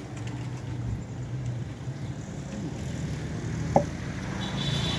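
A steady low engine hum, an engine idling, under faint street noise. One sharp click a little under four seconds in.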